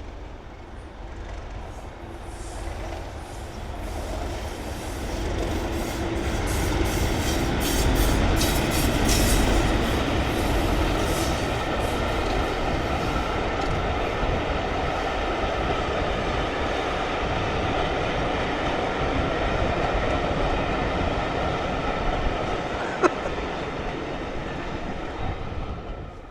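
Steam train running along the valley line, growing louder over the first several seconds, then running steadily until it cuts off suddenly at the end.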